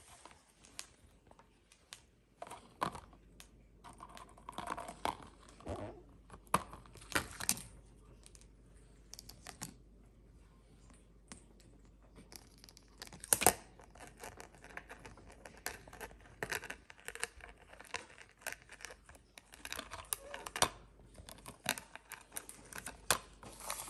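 Cockatiels cracking and nibbling dried banana chips with their beaks: irregular crisp cracks and crackles, with one louder crack about halfway through.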